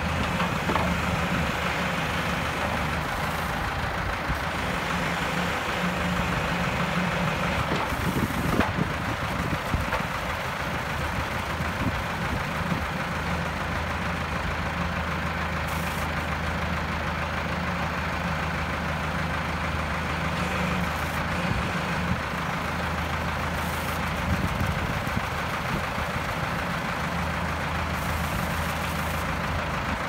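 Engine running steadily, driving the hydraulics of a McConnel Power Arm backhoe while its boom and bucket are worked.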